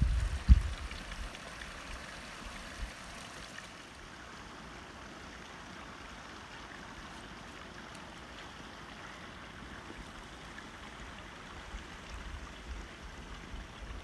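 Water trickling steadily into a hollowed-log wooden trough, fainter after about four seconds. Wind buffets the microphone at the start and again near the end.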